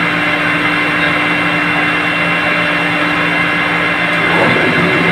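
30-horsepower rotary screw air compressor running steadily: a loud machine hum with several steady tones, which shift slightly about four seconds in.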